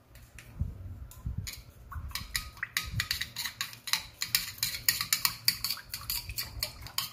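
A metal utensil beating an egg into yeast water in a ceramic bowl, clicking rapidly against the bowl's sides at several taps a second, starting about a second and a half in.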